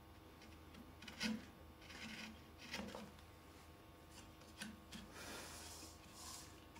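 Faint hand-carving on wood: a few short scrapes and clicks of a small carving gouge cutting away the corner of a captive cube inside a turned sphere, then a soft rubbing sound near the end.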